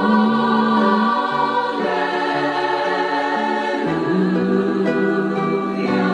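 Choral music: voices holding long chords that shift every second or two.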